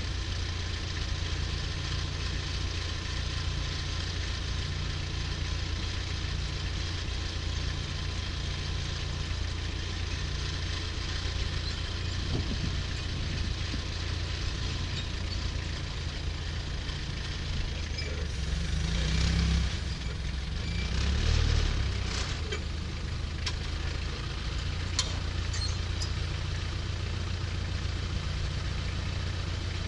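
Diesel engine idling steadily, with a low pulsing note in the first half; it swells twice, briefly louder, about two-thirds of the way through.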